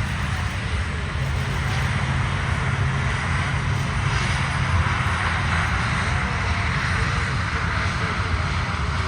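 Aircraft engine running loud and steady, with a deep rumble under a broad rushing sound that swells slightly about halfway through.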